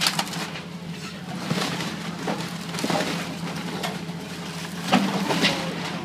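A John Deere excavator's diesel engine running steadily while its bucket crushes and tears apart a wooden building, with several sharp cracks and crashes of splintering wood and debris.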